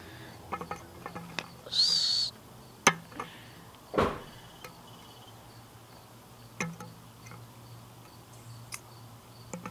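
Scattered small clicks and knocks of a metal Zippo hand warmer and lighter-fluid can being handled in preparation for refuelling, with one louder knock about four seconds in and a brief high squeak near two seconds.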